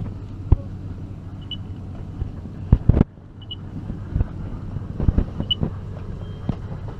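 Engine running steadily, with several sharp knocks, the loudest two close together about three seconds in. Short high beeps sound about every two seconds.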